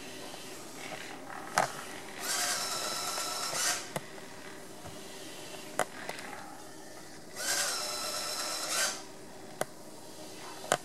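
iRobot Braava Jet mopping robot running with a steady hum, twice giving a hissing spurt of its water spray with a faint pump whine, each about a second and a half long. A few sharp clicks fall in between.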